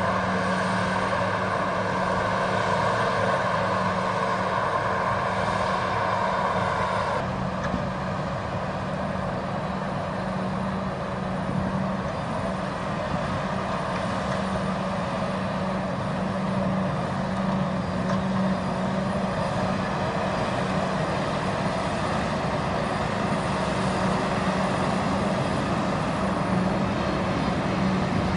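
Heavy diesel farm machine's engine running steadily, its tone changing abruptly about seven seconds in.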